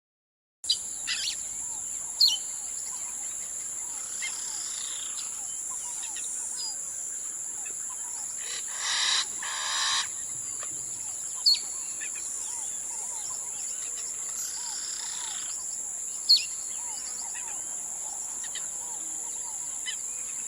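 Natural ambience: birds chirping and calling over a steady high-pitched insect drone, starting after a moment of silence. A few sharp, loud calls stand out, and a longer call with several tones comes about halfway through.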